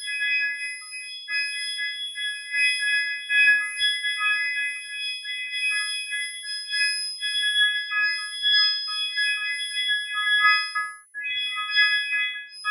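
Electronic synthesized tones, several high notes sounding together in chord-like phrases that stop and start, with a brief break about 11 seconds in.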